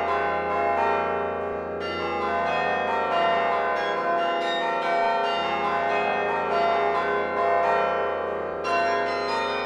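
The 72-bell Laura Spelman Rockefeller Memorial Carillon played from its baton keyboard: a quick stream of struck bronze bells, each note ringing on under the next. From about two seconds in the highest bells drop out, and they come back near the end.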